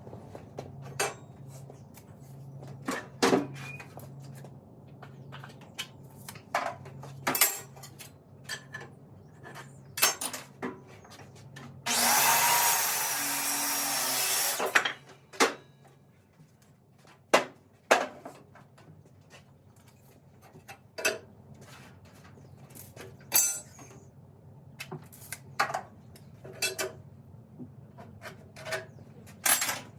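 Heavy oak planks knocking and clattering as they are handled, with one burst of a power tool running for about three seconds about halfway through.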